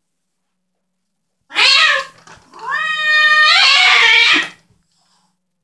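A female cat yowling angrily at a male cat's mating advances, as if saying no. A short harsh cry about one and a half seconds in is followed by a longer drawn-out wail that rises, holds, and turns harsh before it stops.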